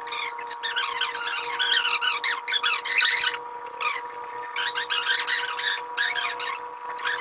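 High-pitched chirping and squeaking in quick, wavering runs, with short lulls about three and a half and six seconds in.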